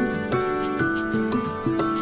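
Background music: gentle instrumental piece with bell-like chiming notes, a new note struck about every half second over sustained lower tones.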